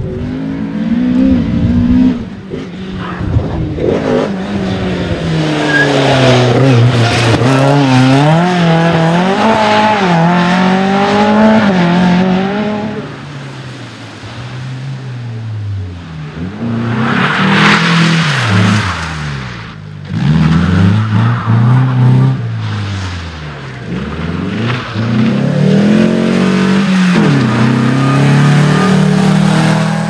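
Rally cars driven hard on a tarmac stage, one after another: engines revving high and dropping again and again through gear changes and lifts. About halfway through, a short hiss over the engine, probably tyres scrubbing, stands out.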